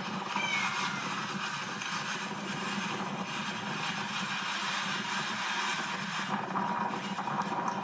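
A motor vehicle's engine running steadily under a continuous hiss of noise.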